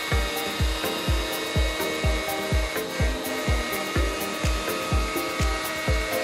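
Background electronic music with a steady kick-drum beat, about two beats a second, and a bass line. Underneath it is the steady whine and hiss of a Carbide 3D trim router on a Shapeoko XXL CNC machine, cutting quarter-inch PVC sheet.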